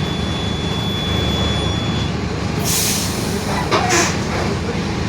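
Mercedes-Benz OF-1721 BlueTec 5 city bus running under way, a steady low drivetrain drone with the differential growling. A little past halfway come two short hisses of air from the pneumatic brakes.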